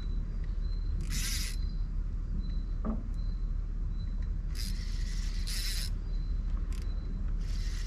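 Spinning reel buzzing in four short bursts as a hooked fish is played on a bent rod, over a steady low rumble.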